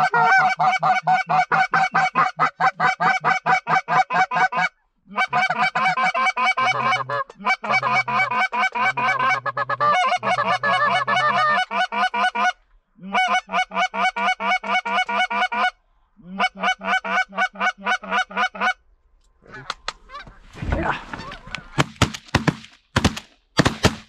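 Canada goose honking and clucking in rapid, even runs broken by short pauses. Then a volley of shotgun shots in quick succession near the end.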